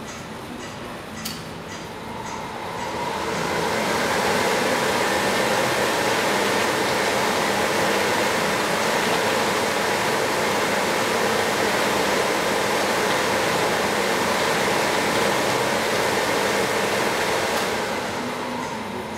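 A steady rushing, rumbling noise from the Crane Clock installation. It swells up over about two seconds, holds evenly, and fades away near the end.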